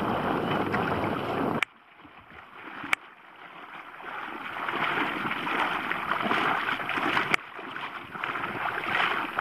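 Wind on the microphone and water washing in shallow sea flats, a steady rushing noise. It drops away suddenly about a second and a half in, then builds again into a higher, hissing wash, with a sharp click or two where the footage is cut.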